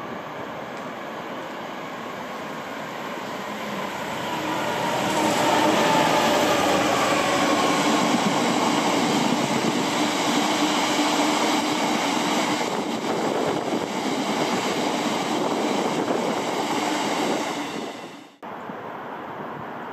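Class 66 diesel-electric freight locomotive, its two-stroke EMD diesel engine running under load, approaches and passes at the head of a freight train. The sound builds from about four seconds in and stays loud for around ten seconds, with a pitched drone that drops in pitch as it goes by. It then cuts off abruptly near the end.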